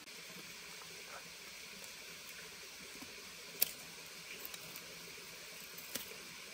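Steady, faint hiss of running stream water, with a few sharp clicks of a knife cutting bamboo. The loudest click comes about three and a half seconds in, and another comes near the end.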